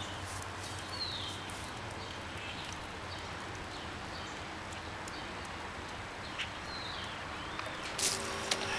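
Outdoor ambience with a few short, falling bird chirps. Near the end there is a brief cluster of sharp clicks and knocks.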